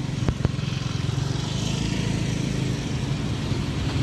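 A small engine running steadily with a fast, even pulse, and two sharp clicks close together near the start.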